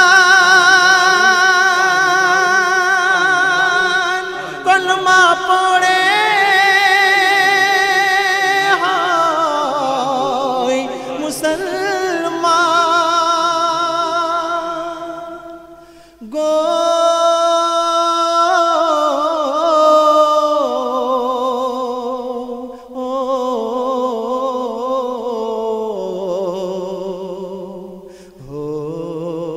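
Bengali Islamic gazal: a male voice sings long drawn-out notes with a wavering vibrato that glide and step between pitches. The singing fades and breaks off about sixteen seconds in, then comes back in on a new phrase.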